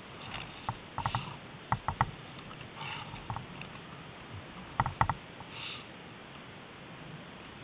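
Handling noise from a camera being moved about by hand: irregular sharp clicks and knocks, with a few short rustling swishes, about three seconds in and near six seconds.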